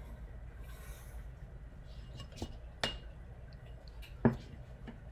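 A short pencil stroke on paper, then four sharp clicks and knocks as a ruler is lifted, shifted and set down on the drawing board. The loudest knock comes just past four seconds in.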